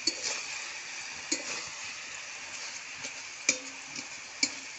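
Vegetable curry frying in a metal kadai with a steady sizzle, while a spoon stirs and scrapes through it, clinking against the pan a few times.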